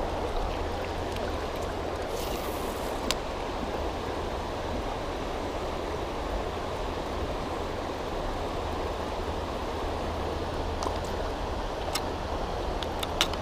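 River water rushing steadily, with a low steady rumble beneath and a few faint clicks.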